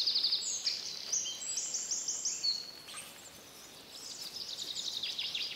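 Woodland songbirds singing: a string of short, rapid, high-pitched trills that overlap one another, thinning out about halfway through and picking up again near the end.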